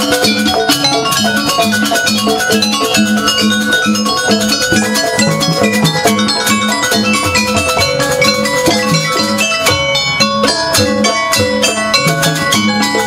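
Javanese jaranan gamelan music: quick, dense strokes of tuned metal percussion ringing over a steady, repeating low beat.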